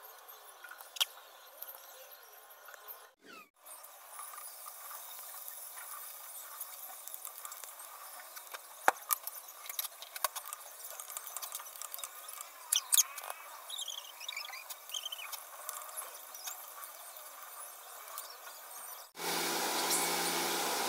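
Methi muthia deep-frying in hot oil: a steady sizzle with scattered sharp pops and crackles, and a few short high squeaks partway through. Near the end a much louder, steadier hiss cuts in suddenly.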